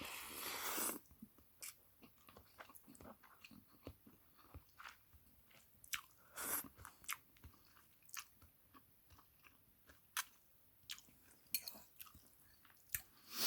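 A person eating ramen noodles up close: soft chewing with small wet mouth clicks, and a longer slurp at the start and another about halfway through.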